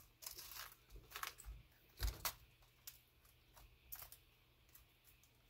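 Outer leaves being torn off a head of green cabbage by hand: a string of faint, crisp snaps and crackles at uneven intervals, with a soft thump about two seconds in.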